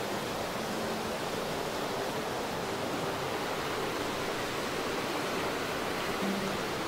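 Hardy Creek rushing fast over rocks below a footbridge: a steady, even roar of white water.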